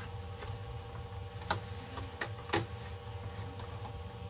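Three sharp clicks as small screws and the plastic case of a ThinkPad 600-series laptop are handled during reassembly, over a steady low hum.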